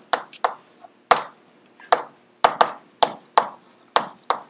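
Chalk tapping and clicking against a blackboard while writing: about a dozen sharp taps at an uneven pace, with a pause of about a second in the middle.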